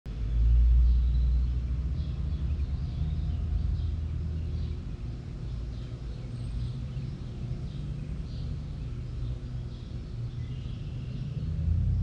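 A steady low rumble, loudest in the first second or so, with many faint bird chirps and calls over it.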